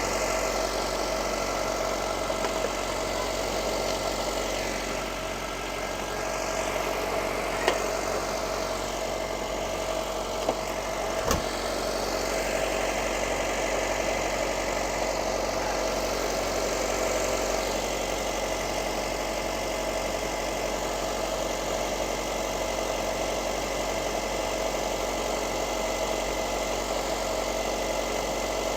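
2005 Honda CR-V engine idling steadily, with a few short clicks, the sharpest about eleven seconds in.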